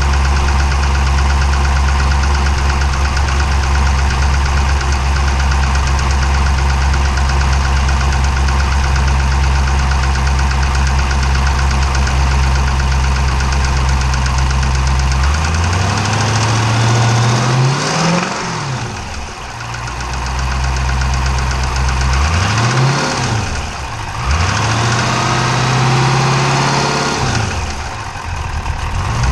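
392 V8 engine idling with a diesel-like knock, then revved up and let fall back about four times in the second half. The knock is the fault on show: the owner says this low-mileage 392 shouldn't sound like a Cummins diesel.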